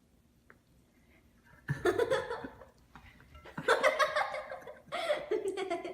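A second or so of near silence, then a person laughing in short bursts, in three spells.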